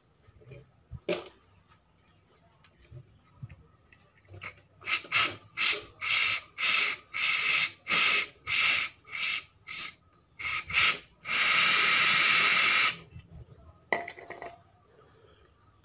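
Aerosol carburettor cleaner sprayed through its extension straw into a removed Toyota Avanza fuel filter to flush dirt out of it. It comes as a run of short hissing spurts, about two a second, then one long spray of about two seconds, and a last short spurt near the end.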